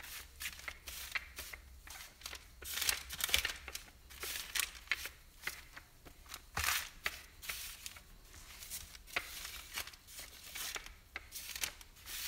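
Rolling pin worked back and forth over a stack of layered bread dough on parchment paper: repeated rustling, scratchy strokes of the paper shifting and crinkling under each pass.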